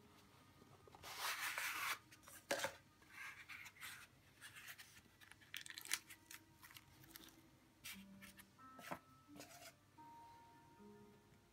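Quiet unboxing handling: a rustle as the small box is opened about one to two seconds in, then scattered small clicks and taps as a stainless steel atomizer and a little plastic bag are lifted from the foam insert and set down.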